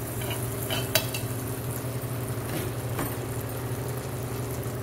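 Melted butter sizzling and bubbling on a hot flat griddle, over a steady low hum, with two sharp clicks about a second and three seconds in.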